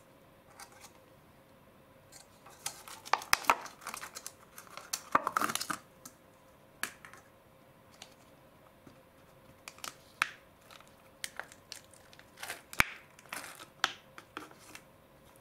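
Thin clear plastic dish crackling and clicking as a set slime 'pizza dough' disc is pried and peeled out of it by hand. The crackles come in irregular runs, busiest a few seconds in, then as scattered clicks.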